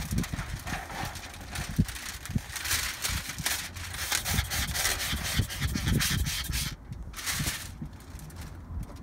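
Window tint film being worked and smoothed onto the wet inside of a truck-cab window: a run of scratchy rubbing and scraping strokes against the film and glass, with a few low knocks.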